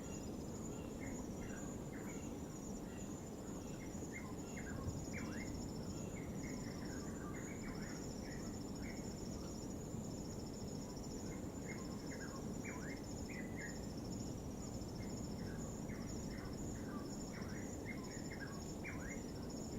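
Nighttime insects trilling in a steady, high, pulsing chorus, with many short bird chirps that drop in pitch, over a low steady rumble of distant waves.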